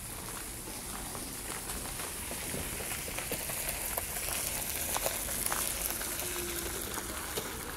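Gravel crunching underfoot and under the tyres of a small Goupil electric utility vehicle as it draws up close alongside, its tyre hiss on the gravel growing louder midway.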